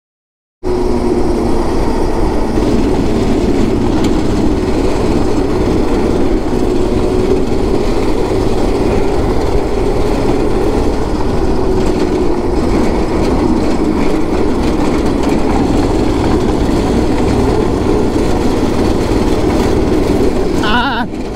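126cc go-kart's 5 hp single-cylinder engine running steadily under load while the kart is driven over a bumpy, broken path, with chassis rattle and jolting mixed into the engine noise. The sound drops out for a moment at the very start, then runs on without a break.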